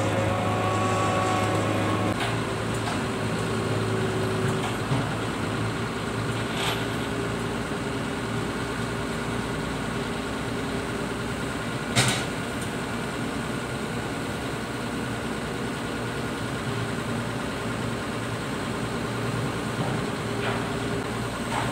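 Crawler crane's diesel engine running with a steady drone, with a whine that falls and then holds in the first two seconds and a single sharp knock about twelve seconds in.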